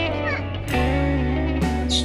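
Background music: a gliding melody over sustained bass notes, with new chords struck about three-quarters of a second in and again near the end.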